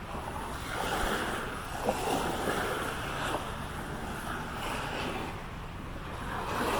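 Small waves washing in repeated swells onto the lagoon shore, with wind rumbling on the microphone.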